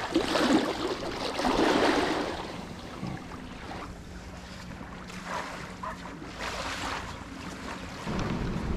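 Splashing of feet wading through shallow water over the first two seconds, then small waves washing on a sandy shore with wind on the microphone, louder near the end.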